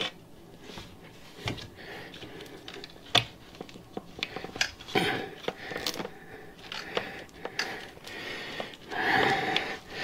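Hands and a tire tool working a solid Tannus airless tire onto a bicycle rim: scattered sharp clicks and knocks over rubbing and rustling of rubber and zip ties. There is a louder stretch of rustling near the end.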